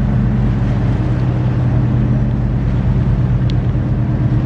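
Tour boat's engine running steadily under way, a low, even drone.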